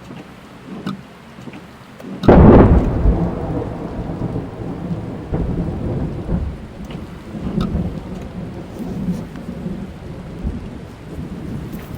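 Thunderstorm heard from inside a car: rain falling on the car's body, then a sudden loud thunderclap about two seconds in that rolls on as a long, low rumble.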